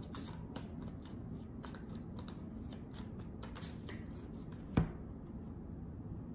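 Tarot cards being shuffled by hand: a run of soft, quick card flicks and slides. There is one sharper tap a little under five seconds in, and the sound goes quieter after it.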